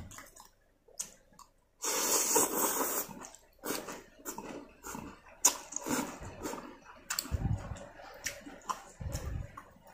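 A man slurping a mouthful of rice-vermicelli noodles in one loud wet pull about two seconds in, then chewing with wet mouth sounds and scattered sharp clicks.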